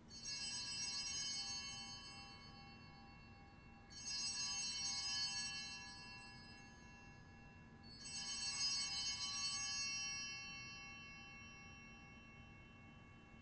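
Altar bells rung three times, about four seconds apart, each ring bright and slowly fading. The ringing marks the elevation of the chalice at the consecration of the Mass.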